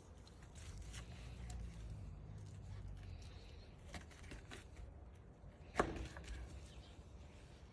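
Knife slicing through a roast pork joint's crisp, scored crackling on a wooden cutting board: faint crunching and crackling, with one sharp knock about six seconds in.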